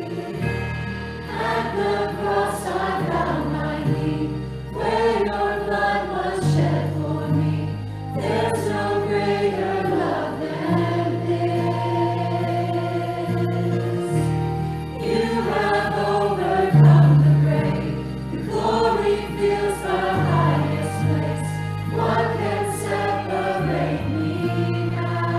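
Church choir singing with instrumental accompaniment, in phrases with short breaks every few seconds over sustained bass notes that change every second or two.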